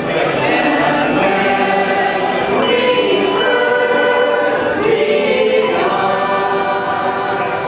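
A group of voices singing a hymn together, in long held notes.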